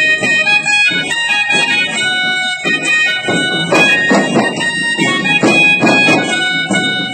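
Rajasthani folk music: a melody of held notes over beats on chang frame drums, the drumming heavier from about three seconds in.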